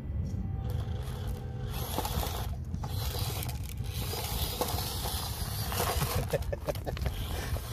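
Hobby Plus CR-18 1/18-scale RC crawler working over a rocky dirt trail: tyres scraping and crunching on dirt and stones, with scattered sharp clicks, over a steady low rumble.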